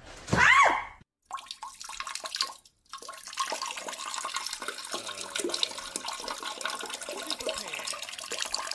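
A short cat meow that rises and falls near the start. Then, from about three seconds in, a steady rush and splash of water in a toilet bowl.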